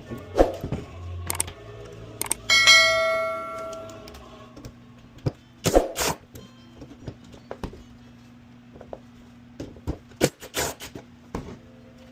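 Metal tools and ATV brake caliper parts knocking and clinking during disassembly, with one loud ringing metallic clang about two and a half seconds in that fades over a second or so.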